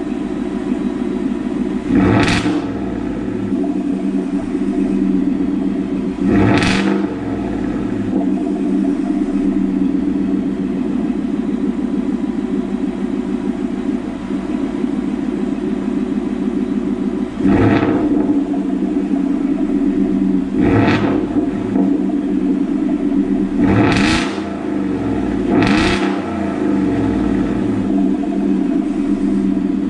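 Ford F150's 5.0 V8 idling on a cold start through a Corsa Extreme cat-back exhaust (Corsa Sport with the resonator deleted), with a steady deep idle broken by six short throttle blips that rise and fall quickly.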